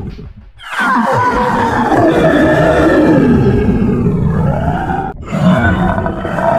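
A dubbed monster-roar sound effect. It comes in about a second in, its pitch sliding down over a couple of seconds, and breaks off sharply for a moment about five seconds in before resuming.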